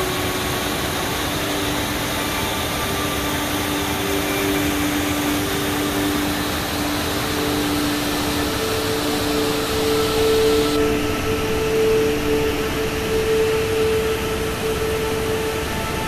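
Large cascade waterfall rushing: a loud, steady rush of falling water, even and unbroken.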